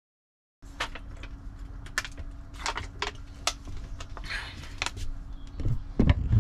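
Belongings being handled and moved: sharp clicks and clinks with some rustling, starting about half a second in, then a few heavier thumps near the end. A faint steady hum runs underneath.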